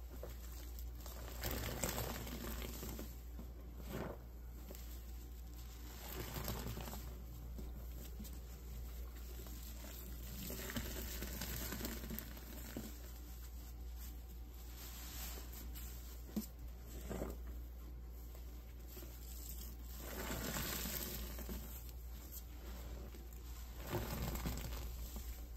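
Wet, sudsy kitchen sponges soaked in baking soda and hot water being squeezed and kneaded by hand in a sink: repeated squelching of foam and water in irregular waves every few seconds.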